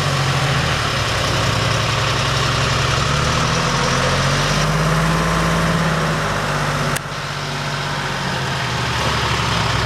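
Gama Goat's Detroit Diesel three-cylinder two-stroke engine running steadily at low speed as the vehicle wades through muddy water, pitch rising slightly in the middle, with a sharp click about seven seconds in.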